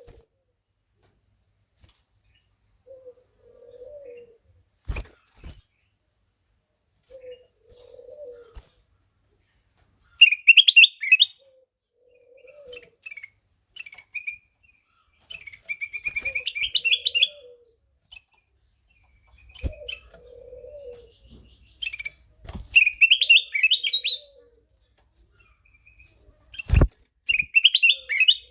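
Kutilang emas (a bulbul) singing short, bright warbled phrases four times, over soft low calls repeating every couple of seconds and a steady high insect trill, with a few sharp clicks.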